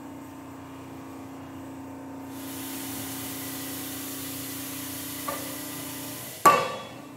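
Steady hum of factory machinery, joined about two seconds in by a continuous hiss. Near the end comes one loud sharp clank that rings off briefly.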